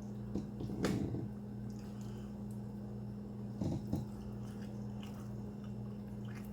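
A person chewing and biting into a chicken quesadilla close to the microphone, with short mouth clicks about a second in and twice near four seconds, over a steady low hum.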